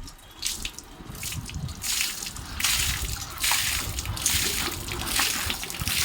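Water splashing and dripping from a solar water heater tank as it is drained, in uneven surges that grow louder about two seconds in.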